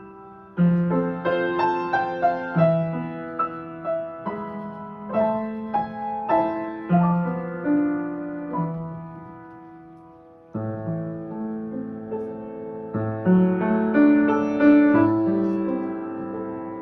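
Piano music: a slow, gentle piece played in chords, each note struck and then fading. The playing dies down about ten seconds in, then a new phrase starts.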